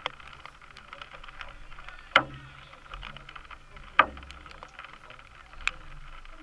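Four sharp knocks over a steady low background, the loudest about two and four seconds in.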